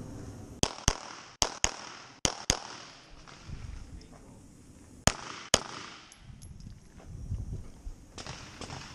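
Pistol fired in quick pairs: three double taps in the first two and a half seconds, then a last pair about five seconds in, eight shots in all.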